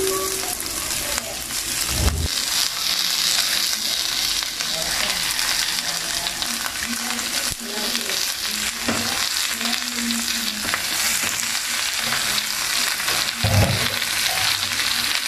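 Salmon pieces sizzling as they pan-fry in hot oil with sautéed onion, garlic and ginger. The sizzle grows louder a couple of seconds in as the fish goes into the pan, with a couple of soft bumps.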